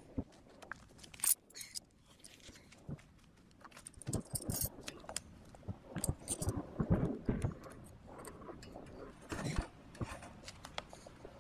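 Irregular clinks, knocks and rustling of tools and gear being handled, a scatter of short sharp sounds.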